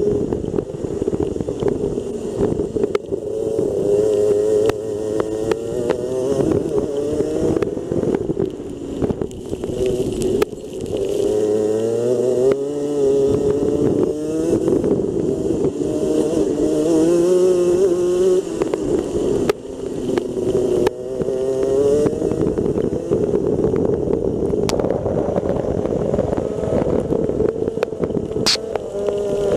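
Rotax Senior Max kart's 125 cc single-cylinder two-stroke engine at racing revs, its pitch climbing on the straights and dropping several times as the throttle comes off for corners, heard from an onboard camera.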